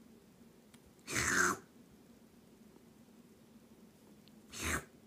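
Kitten sneezing twice, short sudden sneezes about three and a half seconds apart, the first one louder.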